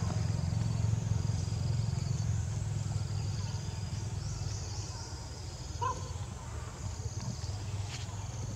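Outdoor background: a steady low rumble with faint high chirping, like insects, throughout, and one short squeak about six seconds in.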